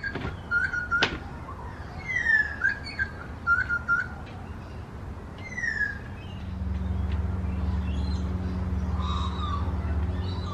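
Birds calling with short, repeated falling whistles, with one sharp click about a second in. About six seconds in, a steady low hum starts and carries on under fainter bird calls.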